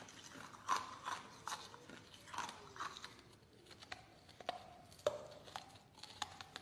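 Hard ice being bitten and chewed, with irregular sharp crunches and cracks about once or twice a second.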